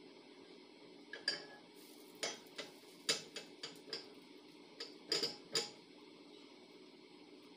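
A spatula clicking and tapping against a small frying pan on a gas hob while a little pancake is flipped and pressed. There are about a dozen sharp, uneven clicks, starting about a second in and stopping a little before six seconds.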